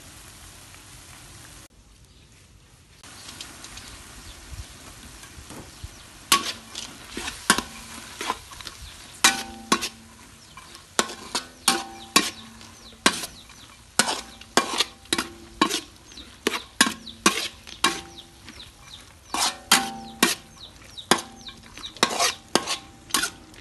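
Minced pork and noodles sizzling in a metal wok. From about six seconds in, a metal spatula scrapes and clanks against the wok one or two times a second, each stroke leaving a short metallic ring.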